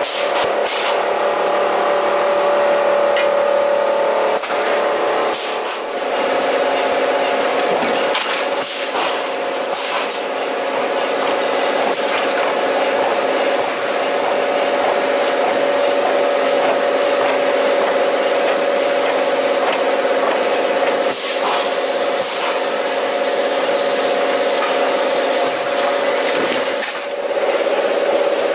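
Toilet roll and kitchen towel production line machinery running: a steady mechanical hum with several held tones, broken by scattered clicks and knocks.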